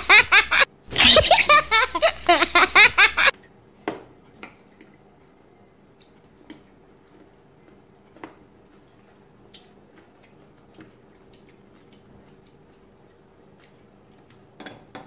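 A loud clip of added sound that cuts off sharply about three seconds in, then forks clicking now and then against a salad bowl and plates over a faint steady hum.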